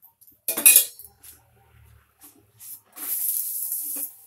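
A steel spoon clinks sharply against metal about half a second in, with a few small taps after it. Near the end, oil sizzles on the hot tawa as a paratha is oiled and turned, a high hiss lasting about a second.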